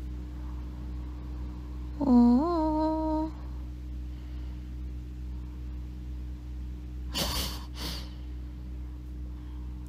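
A young woman humming a closed-mouth "hmm" about two seconds in, lasting just over a second; it rises in pitch and then holds. About five seconds later come two short breathy puffs close together. A steady low electrical hum runs underneath.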